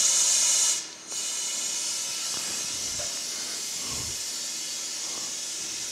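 Vacuum tool on the cooling system hissing steadily while a tube draws excess coolant out of the reservoir to bring it down to the fill mark. It is louder for the first half second, cuts out briefly about a second in, then resumes and holds steady.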